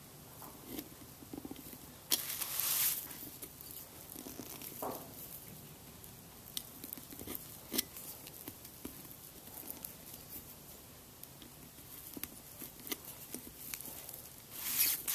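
Small handling sounds as a rubber grommet is pushed and worked into a tail light housing hole with a thin metal pick: scattered light clicks and scratches, with a louder scraping rustle about two seconds in and again near the end.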